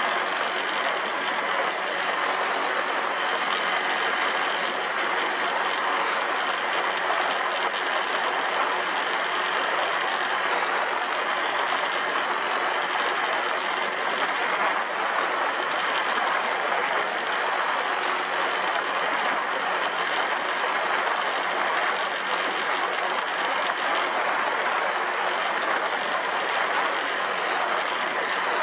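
An ATV's engine running steadily under way, with a dense even noise and no change in speed or load.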